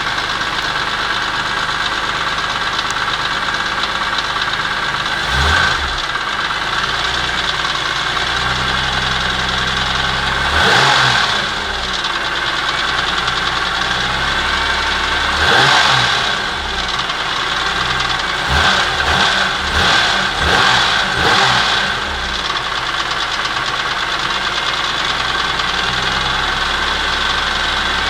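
BMW E46 M3's S54 straight-six idling with a rattle, and the throttle blipped several times: once about five seconds in, two longer revs around eleven and sixteen seconds, then a quick run of short blips just after that. The rattle appeared after the engine was rebuilt on a used block with the old head, VANOS and cams, and its cause is unknown to the owner.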